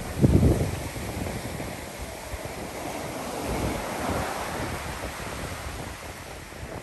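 Ocean surf washing on the beach with wind buffeting the microphone. A hard gust thumps the mic about half a second in, and the surf swells louder around three to four seconds in.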